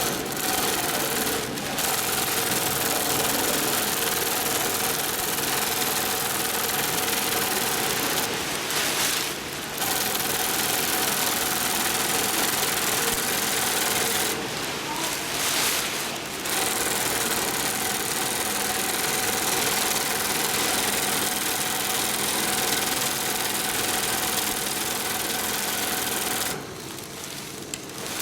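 Dürkopp Adler (Sailmaster) 72525-101 long-arm zigzag industrial sewing machine running at speed in long runs. It stops briefly between runs a few times, the last stop coming near the end.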